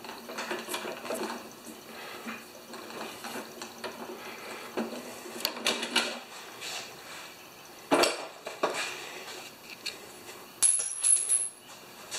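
Handling noise from a push mower's metal handle and control cables as hands untie and remove a cord rigged to it: irregular light clinks, taps and rattles, with a few sharper knocks about eight seconds in and near the end.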